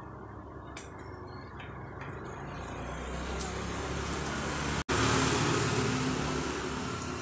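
A motor vehicle passing along the road unseen, its engine and tyre noise swelling over several seconds and then easing off, broken by a sudden brief drop-out about five seconds in.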